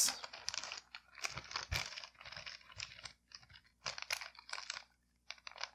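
Clear plastic bag crinkling and rustling in the hands as it is opened. The crackles are irregular, with a short pause near the end.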